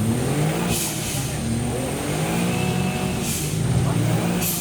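Modified Suzuki Jimny off-road trial machine's engine revving up and down under load, with three short bursts of hiss.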